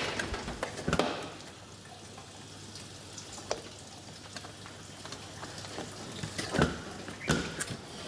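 Ariston LS 603 dishwasher running a wash cycle: water spraying and splashing inside the tub over a steady motor hum, with a few short knocks.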